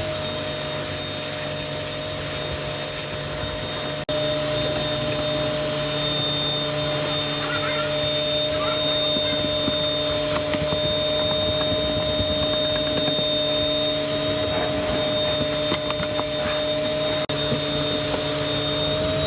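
Vacuum cleaner motor running steadily, used to clean out a car's interior, with a constant high whine. The sound drops out for an instant twice.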